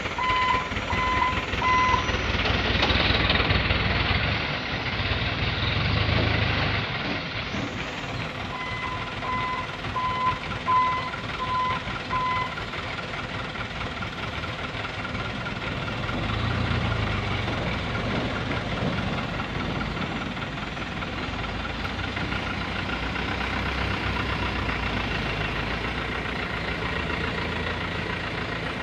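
Diesel dump truck engines running as the trucks manoeuvre, with a reversing alarm beeping at one steady pitch, about two beeps a second, for the first two seconds and again from about 9 to 12 seconds in. A louder rushing noise rises over the engines a couple of seconds in and lasts for several seconds.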